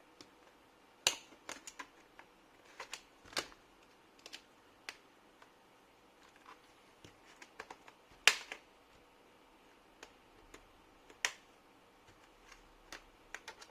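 Plastic snap-fit clips of an Acer Aspire ES15 laptop's keyboard deck clicking loose as it is pried open with gentle force: a scatter of small sharp clicks with four louder snaps spread through.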